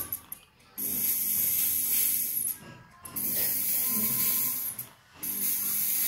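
Fog sprayer hissing in three bursts of about one and a half seconds each, with short breaks between and a low hum under each burst, as it fills the room with thick white fog.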